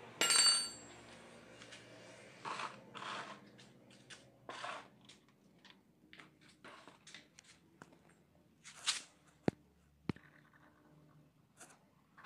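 A metal tool clanks with a short ring about half a second in, then scattered clicks, scrapes and rustles of spanner work while the engine-oil drain plug is loosened, with two sharp clicks near the end.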